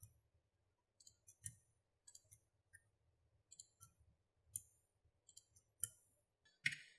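Faint computer mouse clicks, about a dozen at uneven intervals, some in quick pairs, over a faint low steady hum.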